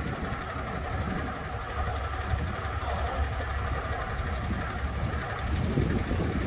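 Fire engine's diesel engine idling with a steady low rumble. The engine is a 2020 Spartan ERV MetroStar pumper's.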